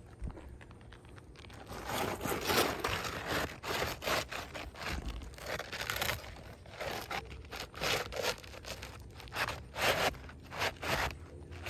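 Asphalt roof shingles scraping and crunching in irregular strokes as a replacement shingle is worked in among the old ones. The old shingles are brittle and crumble when handled.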